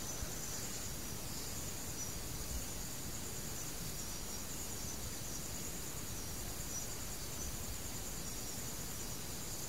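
Insects chirring in a high, steady trill over a low background hiss.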